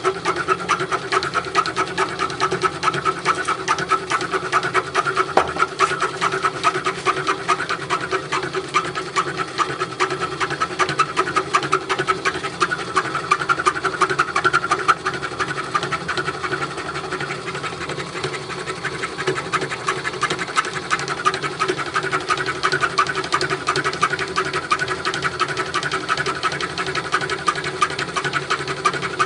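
A metalworking machine running steadily with a fast, even clatter, as when cutting gear teeth.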